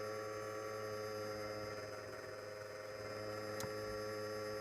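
Servo motors of a powered, self-stabilizing 3-axis gimbal humming steadily as they hold position, a constant electrical whine made of several steady tones. A single sharp click about three and a half seconds in.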